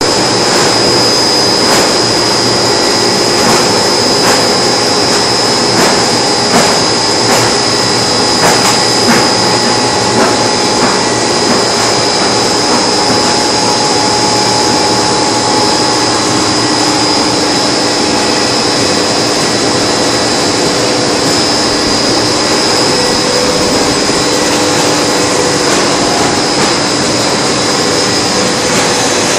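Plastic extruder machine running: a loud, steady mechanical drone from its electric motor and gearbox, with a high steady whine over it and a few clicks in the first ten seconds.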